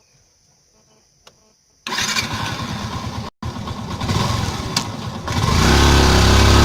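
Near silence, then about two seconds in a Yamaha FZ-S FI V2.0's single-cylinder engine and exhaust come in suddenly and run, breaking off for an instant partway through. Near the end it gets louder as it is revved.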